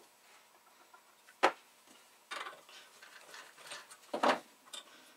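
A few sharp metallic clicks and clinks from a tap wrench being handled at a steel bench vise, with a loud one about a second and a half in and another pair around four seconds in, and fainter ticks between.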